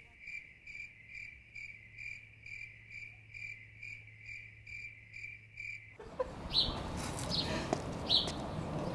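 Cricket chirping in a steady rhythm, about two and a half chirps a second, over a faint low hum; both cut off abruptly about six seconds in. Then an open-air background with a few short bird chirps.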